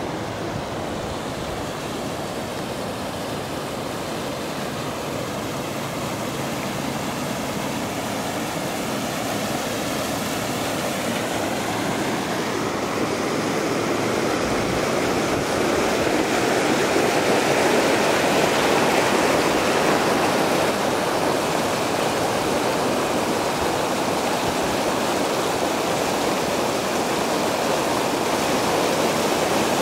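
Storm runoff flowing down a normally dry wash after a hail and rain storm: a steady rush of water. It grows louder around the middle, where the flow tumbles white over rocks.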